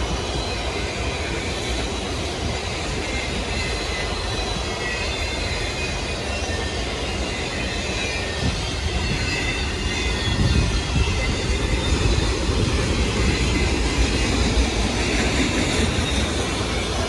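Freight train cars rolling past: a steady rumble of steel wheels on rail, with a high squeal from the wheels. It grows louder about ten seconds in.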